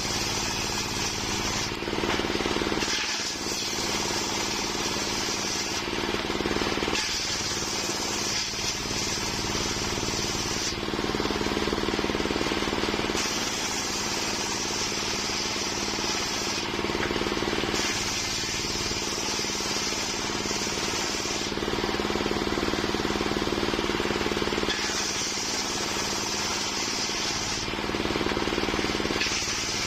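Homemade circular sawmill running steadily, its blade cutting through waru (sea hibiscus) wood in repeated passes of about three to four seconds each, with short breaks between them.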